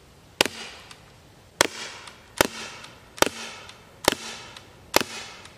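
Umarex TR50 .50 caliber CO2 revolver firing six shots in quick succession, just under a second apart. Each is a sharp pop with a short ringing tail.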